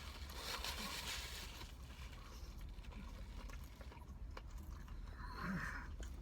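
Faint chewing of a bite of chicken sandwich, with soft irregular crunching noises, over a low steady hum.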